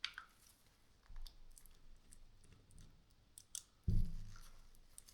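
Tools and the hammer drill being handled on a workbench during disassembly: scattered light clicks and taps, then one heavy thump about four seconds in.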